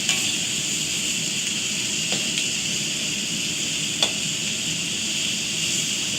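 Scallops, garlic, onion, zucchini and pepper sizzling steadily in a wok over high heat, with a few sharp clicks, the loudest about four seconds in.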